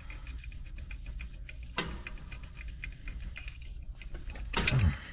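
Light clicks and rustling of hands working the wire spade connectors on a small DC relay module in an air handler's control wiring, over a steady low hum, with a louder brief handling sound near the end.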